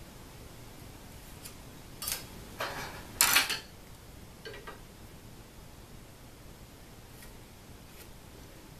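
Light metal clinks and a scrape as a small metal square is set against an aluminum bar, the loudest clink a little over three seconds in, followed by a small knock and a few faint ticks.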